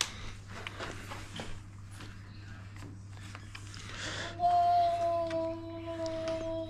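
A few faint clicks, then about four seconds in a child hums one long, steady note that runs on.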